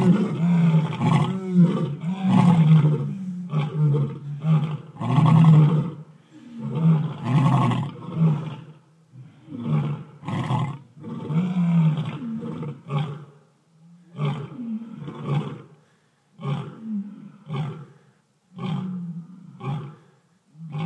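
A lioness and other lions giving territorial roars together: long, overlapping full roars at first, trailing off into a series of shorter grunts, each spaced about a second apart and growing fainter.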